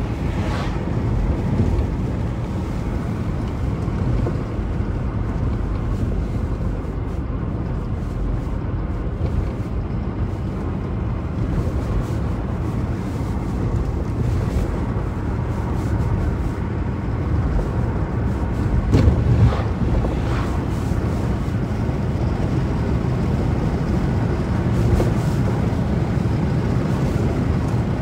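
Steady low rumble of a car driving at road speed, heard from inside the cabin: engine, tyre and wind noise. The rumble swells briefly about two-thirds of the way through.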